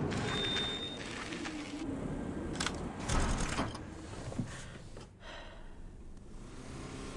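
Car sounds: a steady background hum with a brief high tone in the first second and a few sharp clicks and knocks, growing quieter in the second half.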